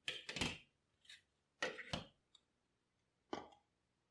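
Light plastic clicks and knocks as a clear acrylic mould and a plastic cup are handled and set down on a wooden tabletop, in four short bursts.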